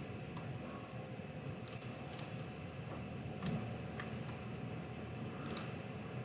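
A few faint, scattered clicks of a computer mouse and keyboard, about half a dozen over several seconds, over a low steady hiss.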